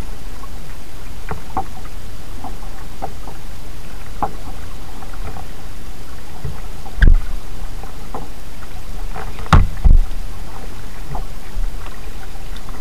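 Kayak being paddled: small drips and splashes from the paddle blades over a steady low rumble, with a loud thump about seven seconds in and two more close together near ten seconds, as the paddle knocks the hull.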